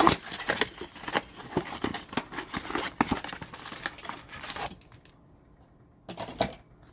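Plastic trading-card pack wrapper crinkling and tearing as it is ripped open, for about the first four and a half seconds. Then a pause, and a couple of light taps near the end.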